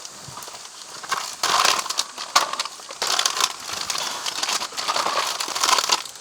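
Dry crunching and crackling in repeated irregular bursts, loudest in the middle and latter part.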